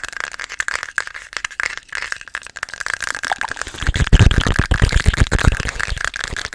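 Fast, aggressive ASMR mouth sounds right on the microphone: rapid wet clicks and pops. From about four seconds in, heavy low thumps come quickly.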